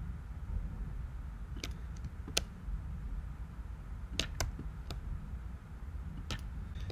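About six scattered, sharp clicks from a computer mouse and keyboard, over a faint steady low hum.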